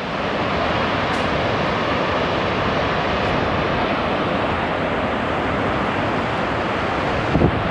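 Steady rushing of Shoshone Falls, a large waterfall on the Snake River. A brief gust of wind buffets the microphone near the end.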